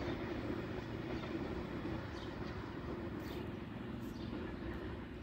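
Container freight train rumbling away down the line, a steady low rumble that slowly fades.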